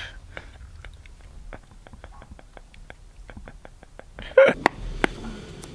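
Men laughing: quiet at first with faint scattered clicks, then a short loud burst of laughter about four and a half seconds in, followed by a couple of sharp clicks.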